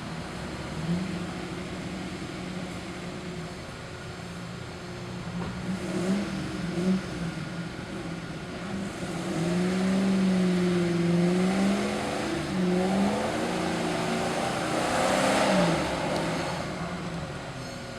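Off-road 4x4's engine revving, its pitch rising and falling, louder from about halfway through.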